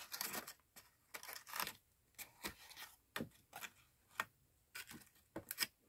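Faint scattered rustles and light taps of a cardstock gift box being handled, its lid opened and pressed down by hand.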